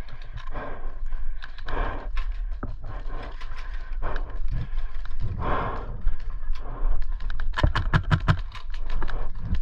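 Footsteps of a player running over the ground, ending in a fast, regular run of steps about two thirds of the way in, with heavy breathing between them.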